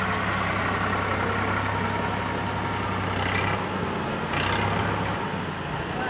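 A JCB backhoe loader's diesel engine running steadily as the machine moves with its front bucket raised, the engine note changing a little about halfway through. A high, rapid trilling comes and goes above it.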